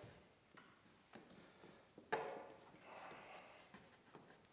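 Near silence with faint handling sounds of split spruce root being drawn through a canoe gunwale lashing, and one slightly louder soft sound about two seconds in.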